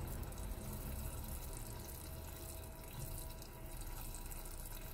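Sugar syrup boiling steadily in a small stainless-steel cezve on a gas burner, a continuous watery hiss. The syrup has thickened to the thread stage.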